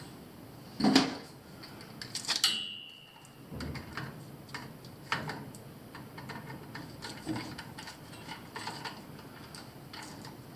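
Scattered clicks and small knocks of hand tools and wires being worked at a boiler zone valve's terminals, with a louder knock about a second in and a brief metallic ring about two and a half seconds in.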